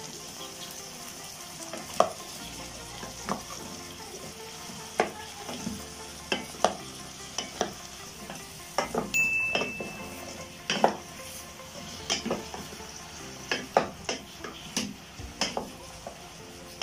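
Wooden spatula stirring fried tofu cubes in a stainless-steel pot, with irregular knocks and scrapes against the pot over a steady sizzle, as soy sauce is mixed into the tofu and onions.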